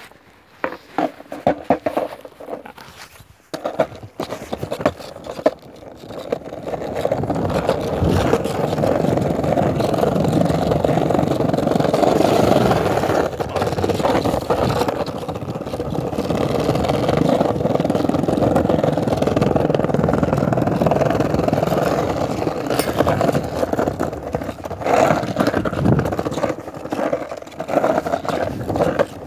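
Skateboard wheels rolling on pavement: a few knocks and clicks at first, then from about seven seconds in a loud, steady rumble that turns uneven near the end.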